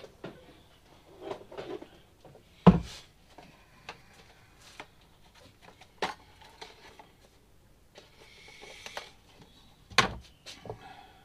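Tools and small objects being rummaged through and handled on a workbench: scattered knocks and clatter, the loudest about three seconds in, with further sharp knocks about six and ten seconds in and some rustling just before the last.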